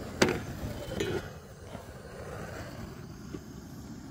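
Hot water poured from a collapsible silicone kettle into an enamel mug, with a sharp click about a quarter second in and a second knock about a second in, over a steady low rumble.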